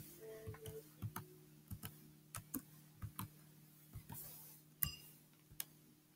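Computer keyboard keys clicking one at a time as a short message is typed slowly, faint and unevenly spaced, over a low steady hum.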